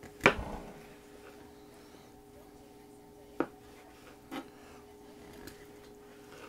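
Knife blade knocking against a plastic cutting board as slices are cut through a smoked sausage. The loudest knock is sharp and comes about a quarter second in; lighter knocks follow at about three and a half and four and a half seconds, over a steady low hum.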